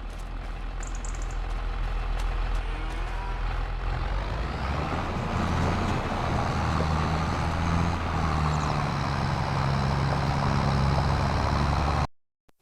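A heavy vehicle's engine running and growing louder over the first few seconds as it comes closer, its pitch shifting about four to five seconds in, then cutting off abruptly near the end.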